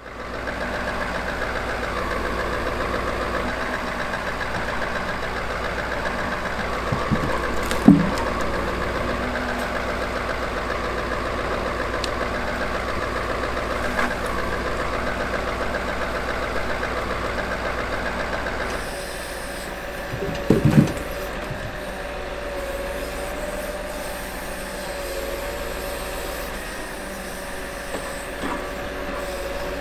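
Scania R580 V8 diesel truck engine running steadily. About two-thirds of the way through the sound shifts to a steadier hum with a thin wavering whine, and there are two short knocks, one early and one just after the change.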